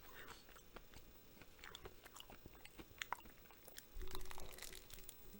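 Faint close-up chewing of a Reese's Crunchy Peanut bar (chocolate, peanut butter and crunchy peanuts): soft scattered clicks and wet mouth sounds, with a brief low, slightly louder sound about four seconds in.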